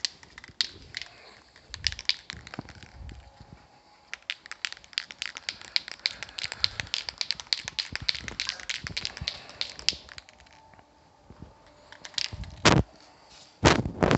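An aerosol spray-paint can being shaken, its mixing ball making a rapid clicking rattle for several seconds, then two short bursts of spray near the end.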